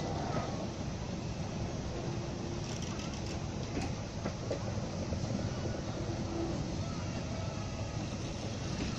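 Passenger coaches of a steam-hauled heritage train rolling past: a steady rumble of wheels on the rails with a few clicks about three to four seconds in, and passengers' voices mixed in.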